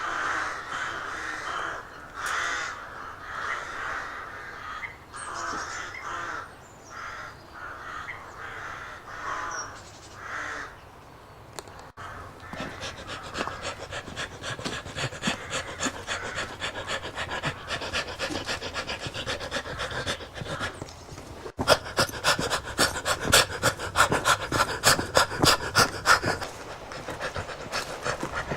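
A person running and breathing heavily, panting hard. In the second half a quick, regular rhythm of footfalls and breaths sets in, loudest a little past two-thirds of the way through.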